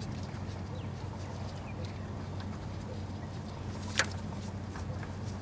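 Hands working parts at an engine's thermostat housing, over a steady low hum; one sharp click about four seconds in.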